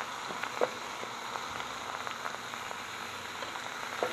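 Buffalo chicken and cheese sizzling on a hot flat-top griddle: a steady crackling hiss. A short knock comes about half a second in, and a metal clank near the end as a dome lid is set down over the food.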